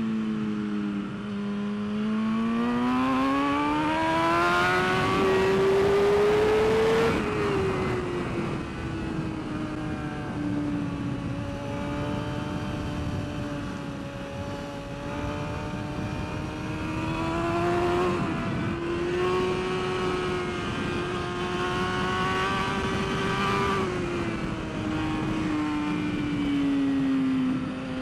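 BMW S1000RR inline-four race bike engine heard from onboard at speed, with wind rushing over the microphone. The engine pitch climbs steadily for the first several seconds, drops sharply about seven seconds in, then holds fairly steady. It falls again near the end and starts to climb once more.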